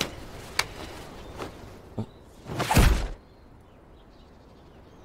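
A few light taps, then a loud whoosh that swells and dies away about two and a half to three seconds in, with a low thud under it.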